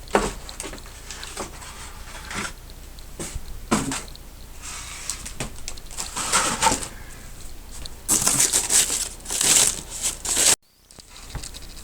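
Packaging and cables being handled and moved around: irregular rustling and crinkling with a few light knocks, busiest near the end, then cutting off abruptly.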